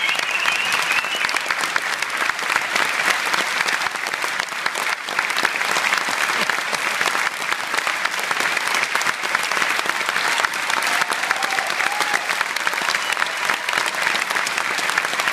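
Large theatre audience applauding steadily, many hands clapping at once.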